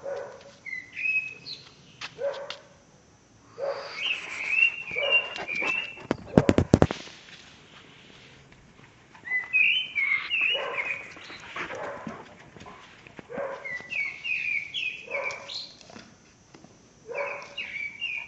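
Dog barking in short repeated bouts. About six seconds in there is a quick run of sharp clicks, the loudest sound here.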